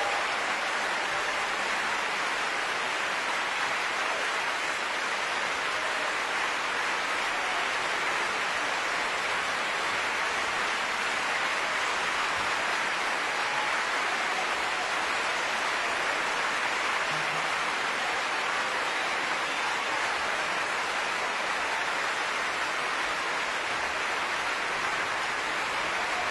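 Steady applause from a large audience.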